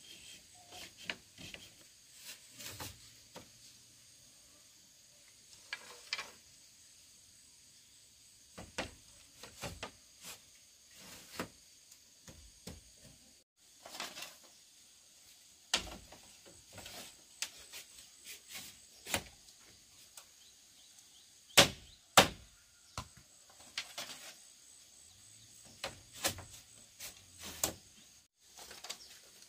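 Scattered, irregular knocks and clicks of objects being handled, with two sharper knocks a little past twenty seconds in.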